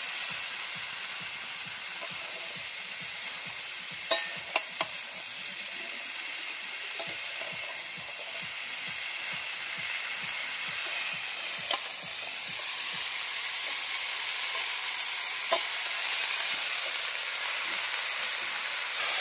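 Shredded cabbage sizzling in hot spiced oil in a karai as a metal spatula stirs it, with a few sharp clacks of the spatula against the pan. The sizzle grows louder in the second half.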